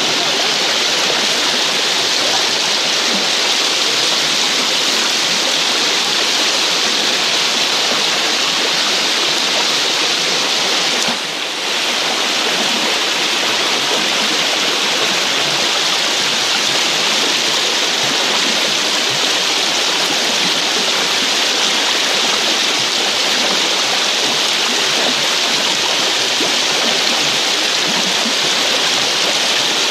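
Shallow, fast river water rushing steadily over stones and around a stone wall. The sound briefly dips about eleven seconds in.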